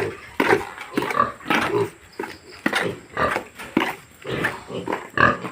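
Duroc pigs grunting: many short calls overlapping in quick, irregular succession.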